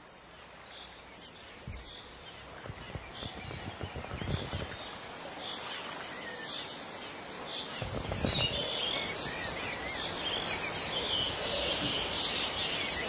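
Small birds chirping, sparse at first and much busier from about eight seconds in, over a low rustling noise.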